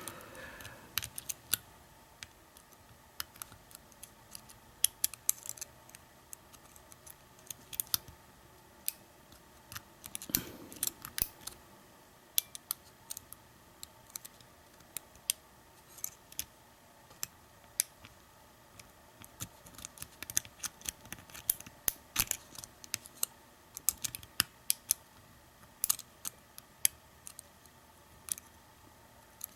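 A lock pick and tension wrench working the pin stack of an American Lock 1100 padlock during single pin picking: small, sharp metal clicks and ticks at irregular intervals, with a brief rustle about ten seconds in.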